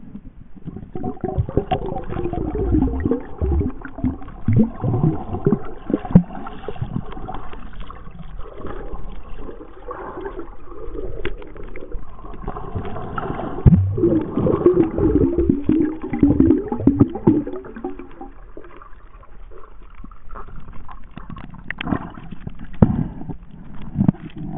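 Muffled gurgling of water moving around a submerged camera, with irregular knocks and bumps, loudest in stretches about two to seven seconds in and again around thirteen to seventeen seconds.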